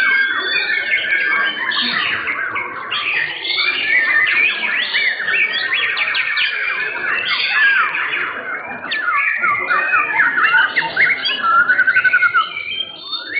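White-rumped shama (murai batu) song: a loud, unbroken stream of clear whistles, fast trills and harsher notes overlapping one another, with a fast pulsed rattle about a second before the end.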